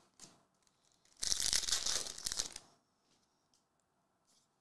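A trading card pack wrapper torn open, a crinkly tearing sound lasting about a second and a half, a little after the start.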